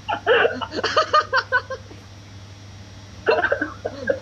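Several men laughing, heard over a video call, in two bouts with a short lull about two seconds in.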